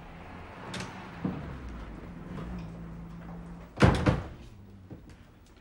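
A door banging shut about four seconds in, loud and sudden, over a low steady hum of room tone.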